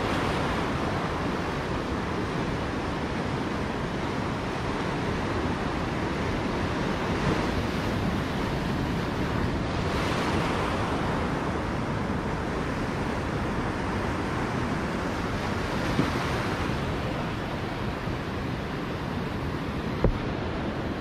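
Ocean surf washing in over rocks and sand in shallow water, a steady rushing wash, with wind rumbling on the microphone. A single short knock near the end.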